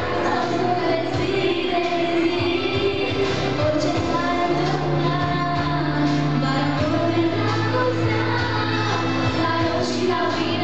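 A young woman singing a song into a microphone, amplified in a hall, with musical accompaniment holding sustained low notes under the voice.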